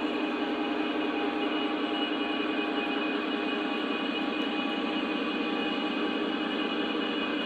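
Model train running along the layout track: a steady hum and whine of the motors and wheels rolling on the rails.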